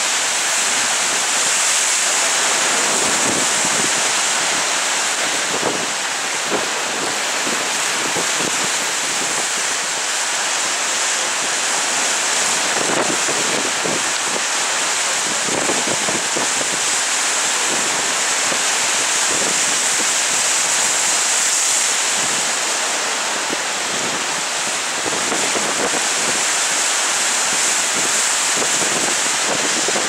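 Rough sea churned up by a strong jugo (south-easterly) wind: a steady loud rush of surf surging and breaking against rocks, with wind gusting on the microphone.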